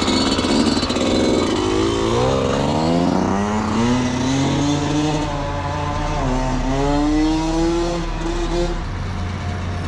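Yamaha YZ two-stroke dirt bike revving and pulling away, its pitch climbing in long rises and dropping back at each gear change, over the steady idle of a quad engine close by.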